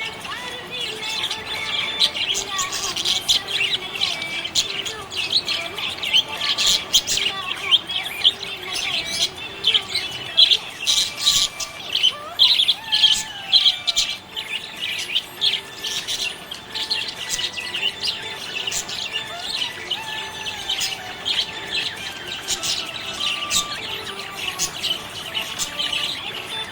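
Budgerigar chirping and warbling without a break, a busy run of quick, high chirps, typical of a contented budgie.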